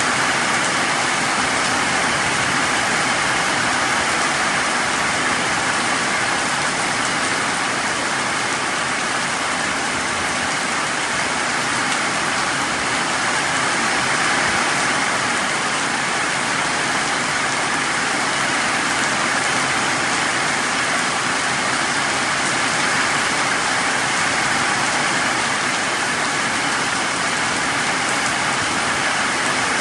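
Heavy tropical rain pouring steadily onto tree leaves and a puddled dirt yard: a loud, even hiss.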